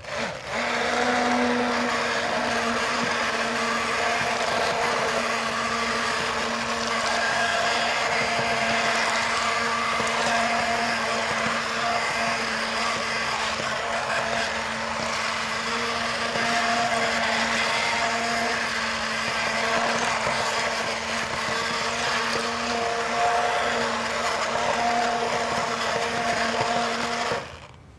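Electric hand blender running steadily in a pot of thick haleem, pureeing the stew of wheat, barley, lentils and meat. This is the blending (ghota) step that breaks the meat into fibres and gives haleem its stringy texture. The motor starts just after the beginning and stops shortly before the end.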